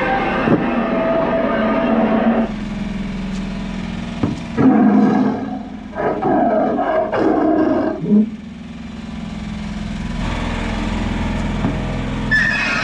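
Recorded wild-animal roars and growls played as the sound effects of a jungle-themed walk-through, three loud bursts in the middle over a steady low hum.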